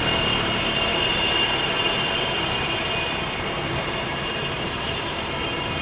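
Jet airliner engines running: a steady rush with a thin high whine, easing slightly toward the end.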